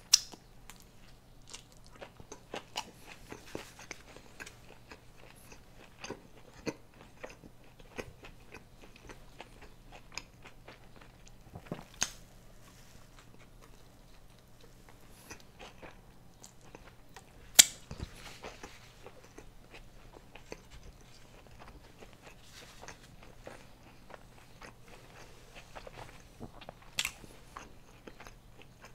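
Close-miked biting and chewing of a taco: a run of small wet mouth clicks and crunches. A few sharper, louder bites stand out near the start, about 12 seconds in, about 17 seconds in and near the end.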